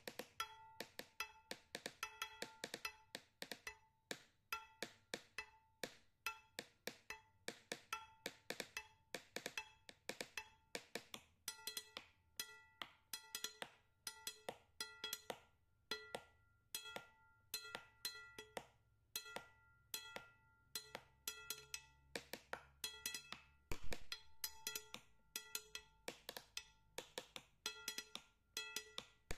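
Background music: a light percussive tune of short struck notes, wood-block-like, in a steady quick rhythm. A single low thump a little before the end.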